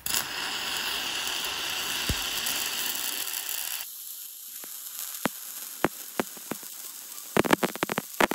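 MIG welding arc running metal-cored steel wire (Select Arc 70C-6 LS) on carbon steel plate. It starts with a loud, even sizzle for about four seconds, then turns quieter with scattered sharp crackles that come thicker near the end.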